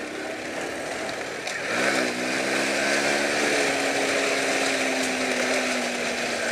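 Honda C90's small air-cooled four-stroke single-cylinder engine pulling along a dirt track, over a steady rushing noise. About two seconds in the revs climb and it gets louder, then it runs at a steady pitch.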